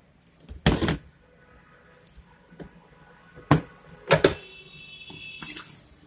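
Plastic lid and clear inner safety cover of a Godrej semi-automatic washing machine's spin-dryer being handled and lifted open: a few sharp plastic clacks and knocks, with a thin high creak near the end.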